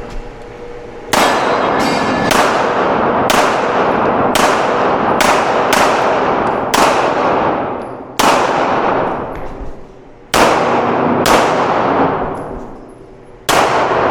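Handgun shots fired at a competition pace through an IPSC stage: about fifteen shots, some in quick pairs, each ringing out with a long reverberant tail. There are pauses of one to two seconds twice, about eight and twelve seconds in, as the shooter moves or reloads.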